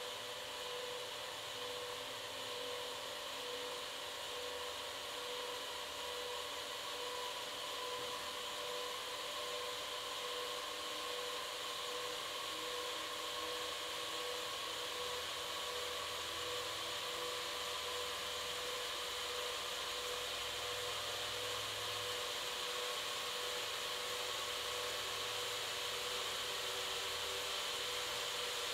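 Motor-driven rotating mounts of a fluorescent-lamp installation whirring steadily with a held hum and a whine. The sound grows slowly louder and the whine rises a little in pitch as the rotation speeds up.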